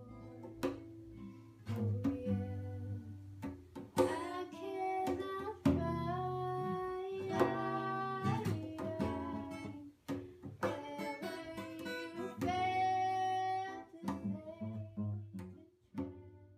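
Acoustic guitar being picked, with a woman singing long held notes over it; the music dies away near the end.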